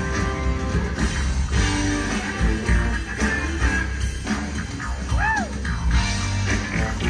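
Live rock band playing an instrumental passage through a festival PA, with electric guitar, bass, keyboards and drums, heard from within the crowd. A short tone rises and falls about five seconds in.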